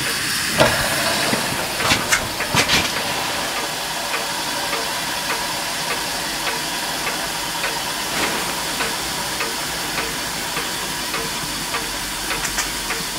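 Steam hissing steadily from a scratch-built horizontal Hero engine (aeolipile), with a few sharp clicks in the first few seconds and a faint regular tick about every half second. The boiler pressure is just not quite enough to keep the rotor spinning.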